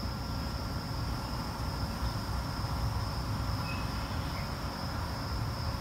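Insects chirring in one steady high note, over a low steady rumble.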